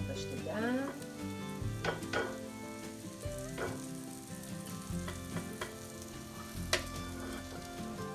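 Hot oil still sizzling and crackling in a non-stick frying pan just off the burner as a fried sweet noodle kugel slides out of it onto a plate. A few sharp clicks punctuate it, the loudest near the end, over soft background music with sustained notes.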